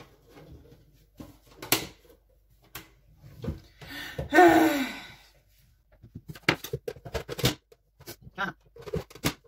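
Scattered clicks and taps as the control knob of a Monsieur Cuisine Connect food processor is pressed and turned to switch the machine back on, more of them in the second half. About halfway through there is one short vocal sound.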